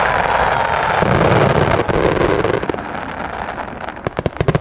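Aerial fireworks bursting: a dense crackling hiss of many small bursts, then a rapid string of sharp cracks near the end.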